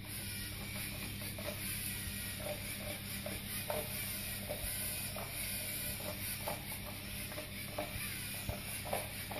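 A LEGO Mindstorms EV3 robot's motors and plastic gears whirring as it drives along a line, with short whines every half second or so as it steers.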